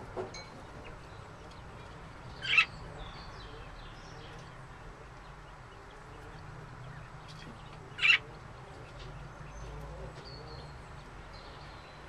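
Budgerigars calling: two short, sharp high calls about five and a half seconds apart, with faint high chirps in between over a low steady hum.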